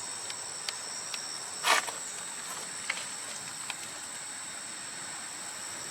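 Insects trilling steadily in two high, unbroken tones, with a few faint clicks and one brief loud knock or handling noise about a second and a half in.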